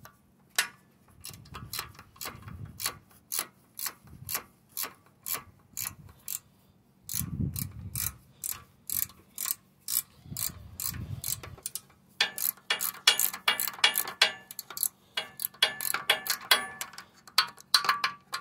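Ratcheting box-end wrench clicking stroke after stroke as a bolt is run in and tightened. The clicking comes about two to three times a second, then turns faster and louder about twelve seconds in, with a few dull bumps from handling.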